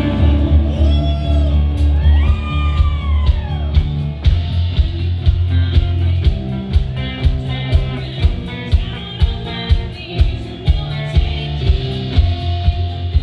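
Live pop-rock music played loud through outdoor PA speakers: a few swooping, gliding tones at first, then a steady drum beat of about two hits a second with singing over it.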